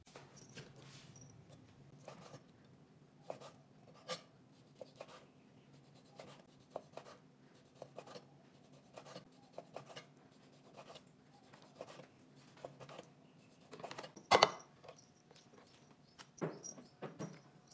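A chef's knife slicing raw pork on a wooden cutting board, with irregular taps of the blade on the board, over a faint low hum. One louder knock comes about two-thirds of the way through, and a few softer knocks follow near the end.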